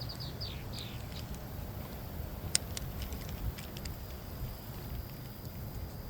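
Wind buffeting the microphone as a steady low rumble. A bird gives a quick run of short, high, falling chirps in the first second, and a few sharp clicks come about halfway through.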